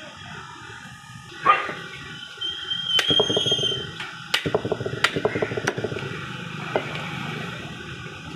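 Meat cleaver chopping lamb heads on a wooden stump block: four sharp chops in the middle of the stretch. A louder sudden sound comes about a second and a half in.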